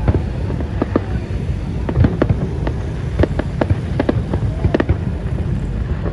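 Fireworks going off: sharp bangs at an irregular pace, often two or three a second, over a steady low rumble.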